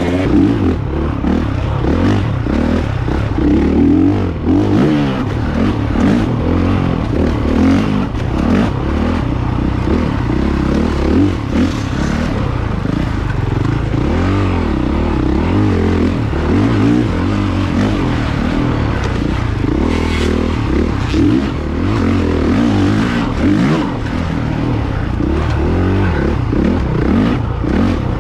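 Honda CRF450 single-cylinder four-stroke dirt bike engine under load on a trail ride, revving up and falling back repeatedly as the rider works the throttle through the gears.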